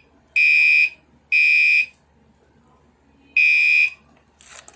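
Fire alarm sounding in the three-beep evacuation pattern: loud, high-pitched beeps about half a second long. Two come close together, then a pause of about a second and a half, then one more beep before it stops. A short clatter follows near the end.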